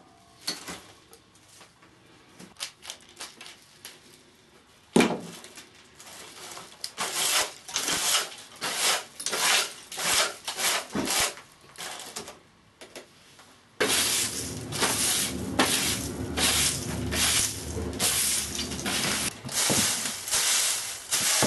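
Birch-twig besom brush sweeping: quick, scratchy strokes across a wooden workbench, with a single knock about five seconds in. Then, after a sudden jump in loudness, denser swishing and rustling of a pile of wood shavings being swept across the floor into a wooden dustpan.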